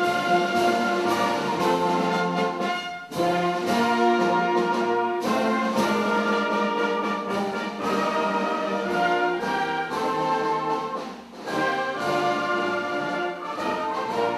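Municipal wind band (harmonie) playing a piece with brass and woodwinds, sustained chords in several parts, with brief breaks between phrases about three, five and eleven seconds in.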